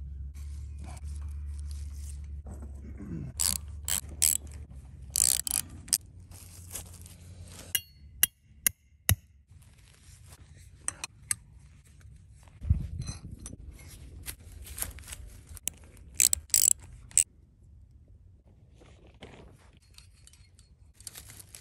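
Scattered metallic clicks and clacks from steel cable hardware and ratchet-strap buckles being handled, with a single dull thud about two-thirds of the way through.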